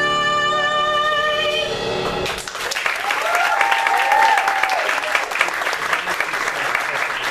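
A singer holds the final note of a song over the accompaniment, with the note wavering near its end, and the music stops about two seconds in. Audience applause follows at once, with a whooping cheer a few seconds in.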